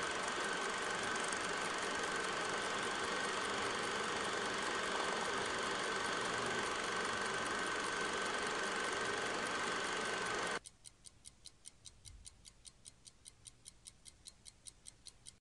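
A steady mechanical drone with a thin high whine running through it cuts off suddenly about ten seconds in. It gives way to faint, fast, even ticking, about five ticks a second.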